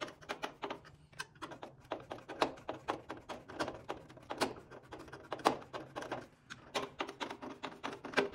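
Irregular clicking and tapping, several clicks a second, as a screwdriver works at the screws and retaining ring of a rectangular headlight on a 1985 Chevrolet S-10, over a steady low hum.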